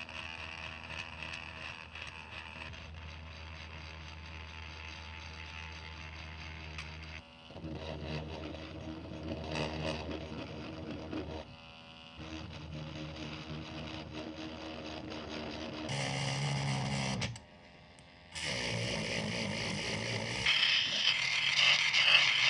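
Small handheld rotary tool running with an abrasive bit, grinding rust off a steel camera part: a steady motor whine with a rubbing scrape on the metal. It breaks off briefly a few times, with a short near-silence about three-quarters of the way through, and grows louder and brighter near the end as an abrasive disc bites into the edge of the plate.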